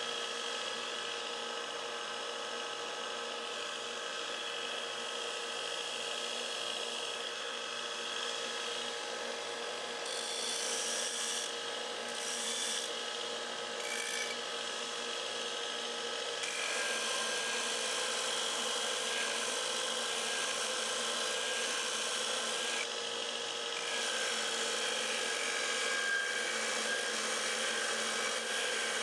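Power grinder running steadily while a commercial Grasshopper mower blade's edge is ground against it during sharpening: a continuous grinding and rubbing of steel, a little louder from a little over halfway.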